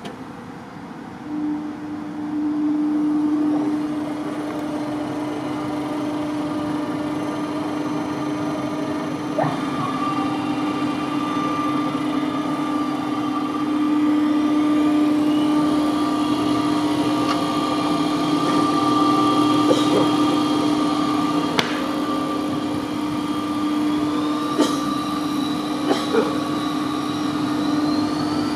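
K+G Wetter SM 45 STL bowl cutter starting up and running empty with a steady motor hum, its knife speed stepped up in stages so that a higher whine rises in pitch twice in the second half. A few short clicks sound over the running machine.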